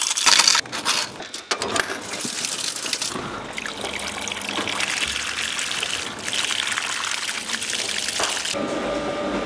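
Coin-operated washing machine filling: water pours and splashes into the drum onto a load of clothes, after a few sharp clicks at the start as coins go into the slot. Near the end the water gives way to a steady hum.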